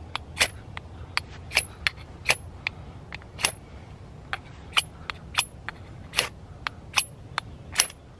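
Dull back of a steel pack axe scraped again and again down a ferrocerium flint striker rod, a sharp metallic rasp with each stroke, about two strokes a second.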